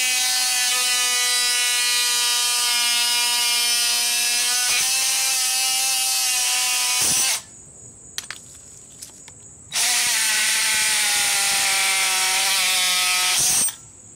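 Oscillating multi-tool running with a steady high buzz as its blade saws through the neck of a plastic scrub brush. Its pitch sags a little as the blade bites. It stops for about two seconds around halfway, then runs again and stops just before the end.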